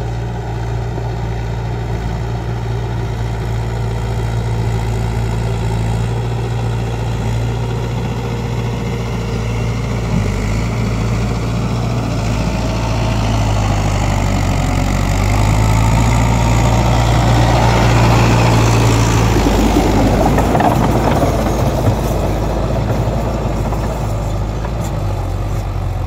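Tractor diesel engine running steadily under load while pulling a plough through wet paddy soil. It grows louder as the tractor comes close, about two-thirds of the way through, then eases off again.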